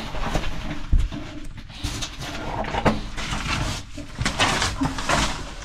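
A caver's clothing and boots scraping and shuffling against clay and rock while he wriggles into a tight cave squeeze, in irregular bursts that grow busier in the second half.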